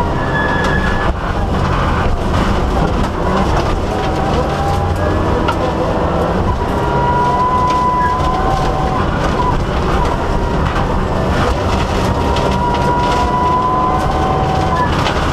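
Mitsubishi Lancer Evolution VIII rally car heard from inside the stripped cabin while driven hard: its turbocharged 2.0-litre four-cylinder engine running loud under load, over steady road noise. Sharp knocks come through now and then, and a high whine rises gently in pitch twice, around the middle and again near the end.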